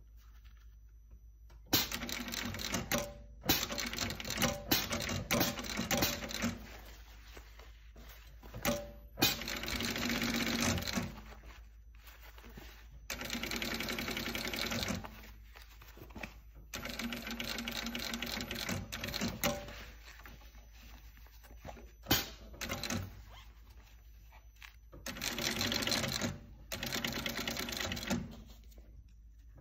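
Industrial sewing machine stitching a new palm onto a hockey glove in short stop-and-start runs, its needle rattling for a second or a few seconds at a time with brief pauses between.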